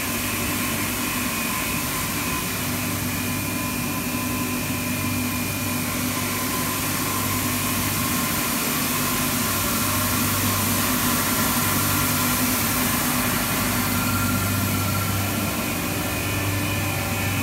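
ASE120 single screw extruder and water-ring pelletizing line running: a steady machine drone with several held hum and whine tones over a broad hiss.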